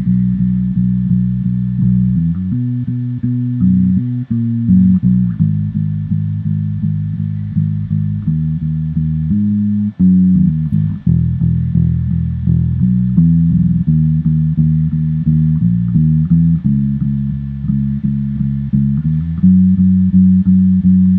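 Electric bass guitar playing a steady run of plucked low notes, a bass line built on fifths, octaves and passing notes.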